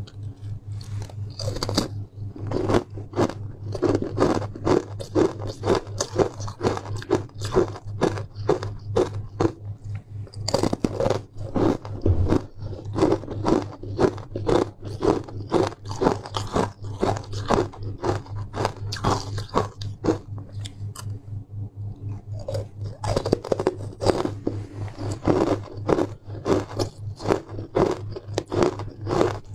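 Close-up crunching and chewing of frozen ice sticks: rapid sharp crunches, several a second, that thin out for a moment about twenty seconds in and then pick up again. A steady low hum runs underneath.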